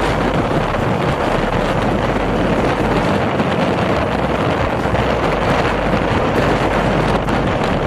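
Steady wind rush on the microphone of a moving motorcycle, with the motorcycle's engine and road noise mixed in underneath.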